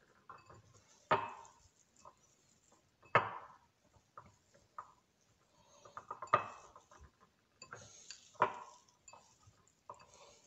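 Hands kneading and squeezing raw spiced mince in a ceramic bowl. There are wet squelches and slaps of meat against the bowl, with four louder ones roughly two seconds apart and small crackles in between.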